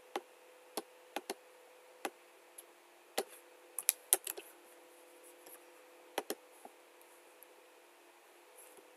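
Scattered, irregular clicks of a computer keyboard and mouse, about a dozen sharp taps over a faint steady hum.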